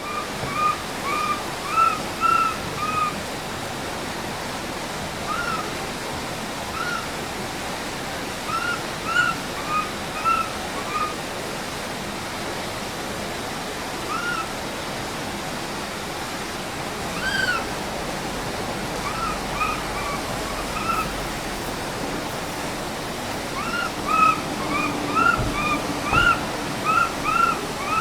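Infant Japanese macaque calling: short, high, arched coos, several in quick succession, in bouts separated by pauses of a few seconds, over a steady rushing noise.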